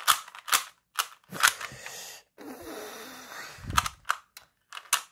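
Plastic Rubik's cube being turned fast by hand: a run of sharp, irregularly spaced clicks and clacks as the layers snap round, with a stretch of scraping in the middle and one heavier knock toward the end.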